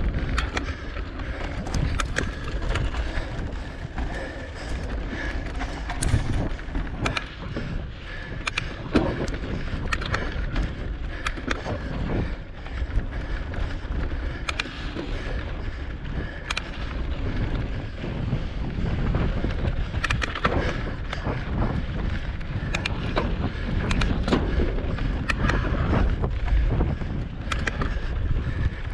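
Cross-country mountain bike ridden fast over rocky dirt singletrack: constant wind buffeting on the bike-mounted microphone, with tyres on dirt and frequent sharp clicks and rattles from the bike striking rocks.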